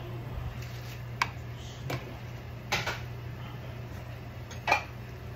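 Kitchenware clattering as a colander of washed spinach is tipped into a frying pan: a handful of short, sharp knocks, the loudest near the end, over a steady low hum.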